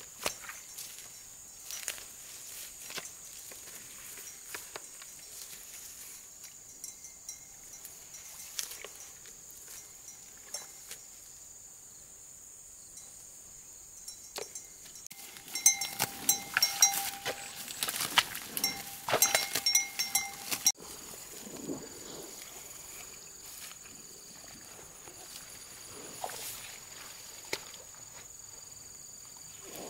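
Footsteps rustling and crunching through dry rice stubble over a steady high whine. About halfway through, several seconds of rapid clanking with a ringing, bell-like tone, which cuts off abruptly.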